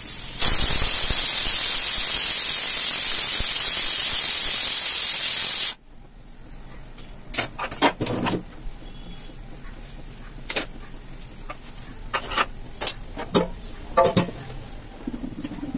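Pressure cooker on a gas burner venting steam through its weight valve: a loud, steady hiss for about five seconds that cuts off suddenly. Then a few scattered clinks and knocks of metal utensils.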